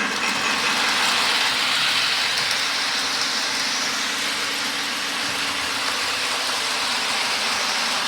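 O scale model train running on the track: a steady whir of the locomotive's motor and the wheels on the rails.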